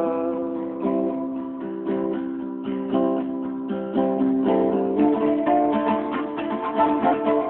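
Acoustic guitar strumming chords with no voice over it. The chord changes about five seconds in and the playing gets busier.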